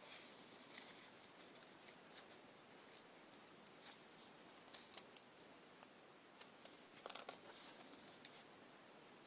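Paper being handled and shifted on a craft mat, with a pencil rubbing and scratching over it: short scratchy rustles in loose clusters, busiest in the second half.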